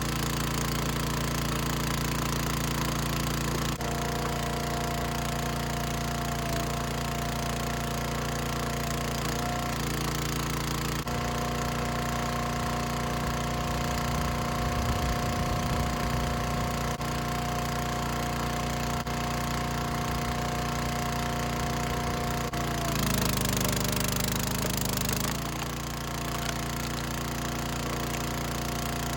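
Gas engine of a 27-ton Dirty Hand Tools hydraulic log splitter running steadily while wood is split. A steady whine comes in about four seconds in, breaks briefly around ten seconds, and drops away near the end.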